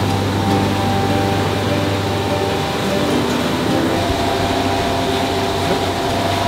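Sea-Doo jet ski running at speed over open water, a steady engine and water-spray noise, with sustained chords of background music laid over it.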